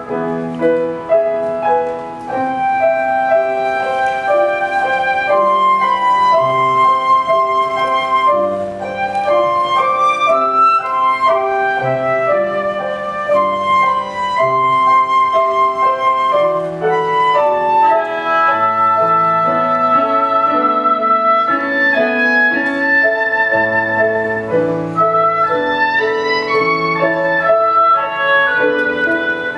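Live flute and clarinet duet playing a melodic piece over a keyboard accompaniment with low held notes. Near the end the flute drops out and the clarinet carries on.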